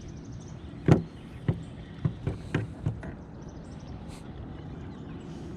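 A handful of sharp knocks and clicks, the loudest about a second in and several more in quick succession soon after, over a steady low hum.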